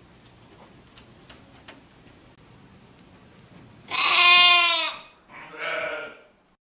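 A cat meowing twice: one long, loud meow about four seconds in, then a shorter, softer one.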